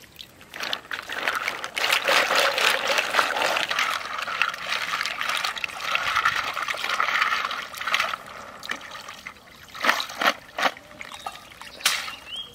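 Pond water splashing and trickling as bamboo baskets of freshwater mussels are swished and dipped to rinse them. The sloshing runs steadily for the first several seconds, then gives way to a few separate splashes near the end.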